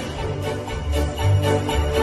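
Music with a jingling, bell-like top over repeated low bass notes.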